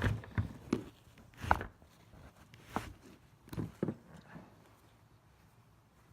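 Hand tools and metal compressor parts being handled: about eight scattered knocks and clinks over the first four and a half seconds, the loudest a short ringing metallic clink about a second and a half in.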